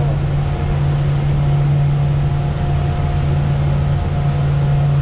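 Outboard engine running steadily at about 4,300 rpm, driving the boat at around 30 mph, with a steady rush of wind and water noise.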